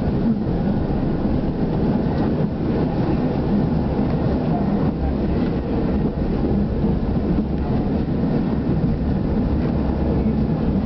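Passenger train running at speed, heard from inside the carriage: a steady rumble of wheels on the rails.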